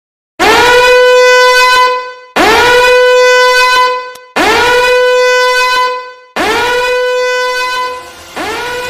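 Horn-like blasts over a very loud sound-system rig, each swooping up into a steady tone and held about a second and a half. The blasts come five times at even two-second spacing, all of identical shape, like a looped sample. Electronic dance music starts under the last one.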